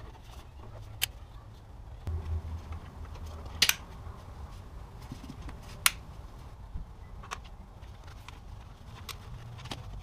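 Hands working plastic crankcase ventilation pipes and hoses into place on an engine, giving a handful of short sharp clicks and knocks over a low rumble of handling; the loudest comes as a quick double click about three and a half seconds in, with another near six seconds.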